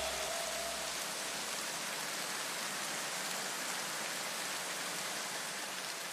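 A steady, even rushing hiss like light rain, slowly fading, with the last low notes of music dying away in the first second or two.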